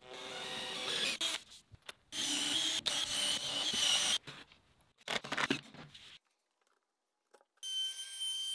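Cordless drill running in three short bursts as it bores holes into a wooden board, its motor whining. After a brief silence, a DeWalt compact router starts up near the end with a steady high whine.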